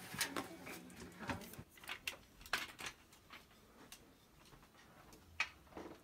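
Faint, irregular knocks and taps of someone climbing down an aluminium stepladder with an armful of bedding, then quieter footsteps, with one sharper click about five seconds in.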